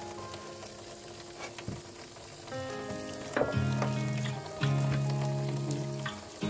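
Background instrumental music with held, changing notes, and a few light clicks.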